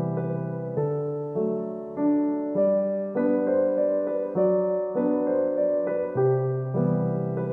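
Background music: a gentle piano tune with a steady pulse, notes changing about every half second.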